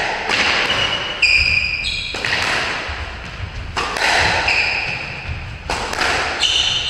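Squash rally: the ball striking rackets and the court walls about every second or two, echoing in the enclosed court, with shoes squeaking briefly on the wooden floor between shots.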